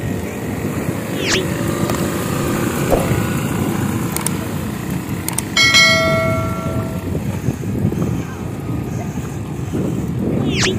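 Quad bike engine running as it drives off across the sand. About halfway through, a small bell is struck once and rings for about a second and a half.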